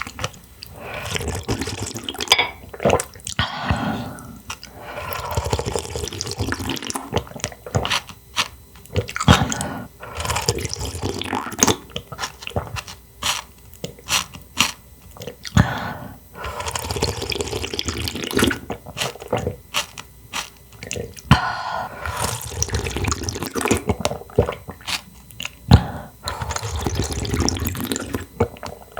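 Close-miked eating sounds of clams and clam soup: wet chewing and slurping, with many sharp clicks.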